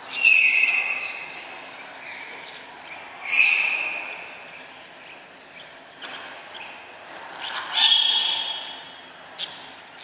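Parrots calling: three loud calls a few seconds apart, each lasting about a second and falling slightly in pitch, and one short sharp call near the end.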